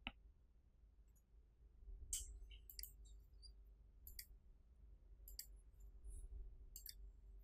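Scattered faint computer mouse clicks, about half a dozen spread over several seconds, against near-silent room tone.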